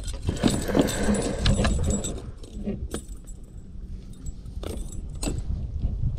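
Metal clinking and jingling of a spinnerbait's blades and hooks as a bass is unhooked by hand, with rustling handling noise and a few sharp clicks.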